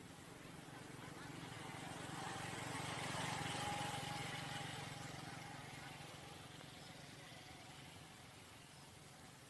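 A motor vehicle passing by, growing louder to a peak about three and a half seconds in, then slowly fading away.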